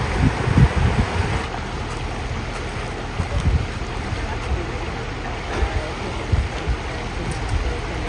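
River water pouring steadily over the lip of a flooded causeway, with irregular gusts of wind buffeting the microphone.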